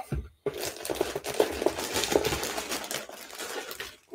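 Plastic packaging crinkling and rustling as a wrapped garment is pulled out of a cardboard box: a dense crackle starting about half a second in and fading near the end.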